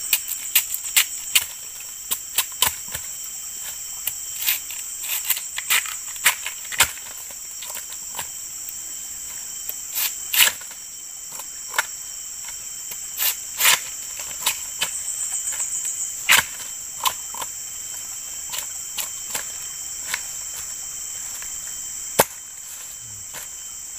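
A machete cutting and chopping a young bamboo shoot: dozens of sharp, irregular knocks and chops. Underneath runs a steady high-pitched drone of insects.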